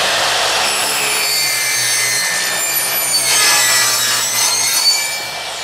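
Sliding miter saw fitted with a 72-tooth blade, running and crosscutting a wooden board. Near the end the motor is switched off and the blade starts to wind down.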